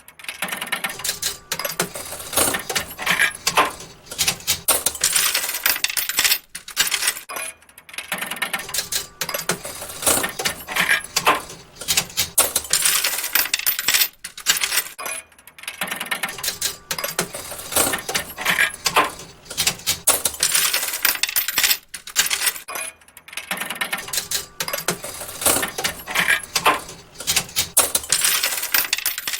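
Slot machine paying out, coins clinking and clattering in a long run of bursts broken by short pauses.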